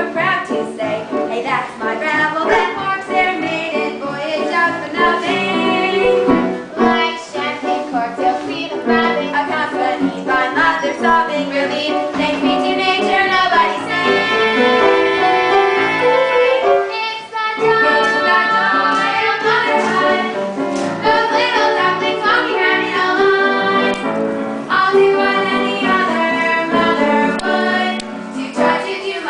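Young girls singing a musical-theatre song with instrumental accompaniment, holding long notes in the middle of the song.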